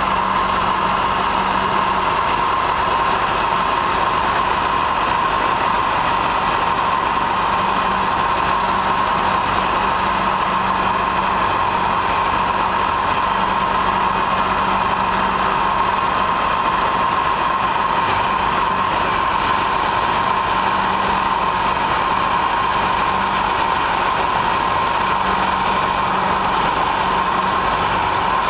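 Steady drone of a light aircraft's piston engine and propeller in cruise, heard from aboard the aircraft. It holds an even pitch and level, with no change in power.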